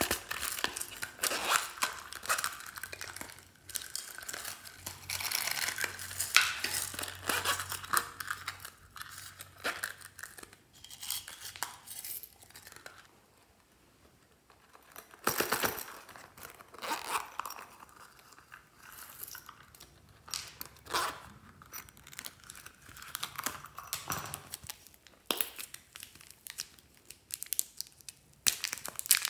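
Plastic packaging crinkling and rustling as small toys are handled and unwrapped, in irregular bursts with a lull about 13 to 15 seconds in.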